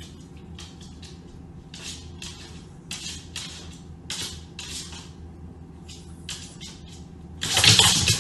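Short, irregular scratchy noises from a small dog moving about a hardwood floor, with a louder rushing burst near the end as it hops around.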